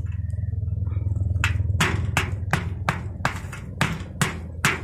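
Claw hammer driving a long nail through a metal roof ridge cap: a quick, regular run of sharp strikes, about three a second, starting about a second and a half in. A steady low hum runs underneath.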